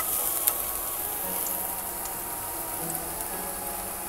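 Diced red onion sizzling in hot olive oil in a frying pan: a steady frying hiss with scattered pops, one sharper pop about half a second in.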